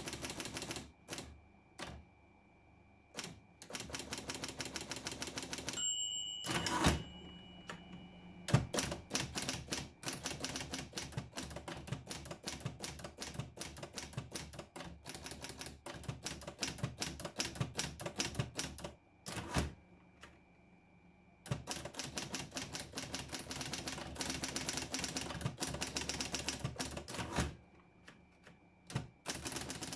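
Underwood Documentor electromechanical typewriter typing in fast runs of key strikes, broken by a few short pauses. There are two heavier clunks, about seven and about eight and a half seconds in.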